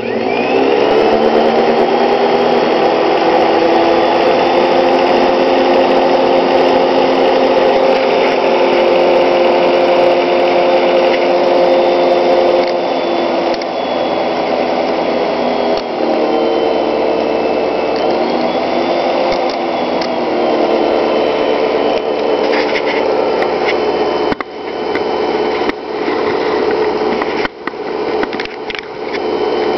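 Panasonic MC-6230 Jet-Flo upright vacuum cleaner switched on, its motor whining up to speed and then running steadily and loudly. About halfway through, the motor pitch drops and shifts in steps as the variable speed electronic control is moved. Near the end the sound dips briefly several times, with a few knocks.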